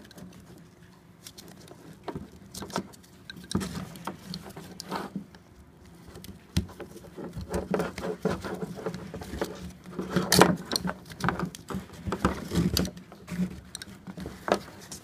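Nylon webbing strap being handled and pulled through a plastic harness buckle: irregular rustling, scraping and small clicks, sparse at first and busier in the second half.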